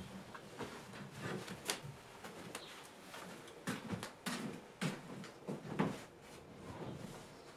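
A bed sheet being smoothed and tucked in on a wooden-framed bed: rustling cloth with scattered light knocks and clicks.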